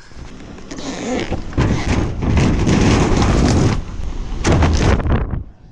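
Loud rushing and rumbling of wind and movement buffeting a body-worn action camera's microphone. It builds over the first second or so, then comes in two surges, the second shorter.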